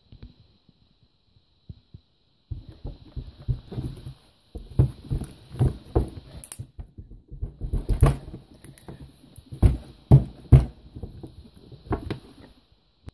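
A lump of silver slime squished, slapped and pounded on a tabletop by hand: irregular squelches and thumps, heaviest in the second half, with a short pause midway. A faint steady high whine sits underneath.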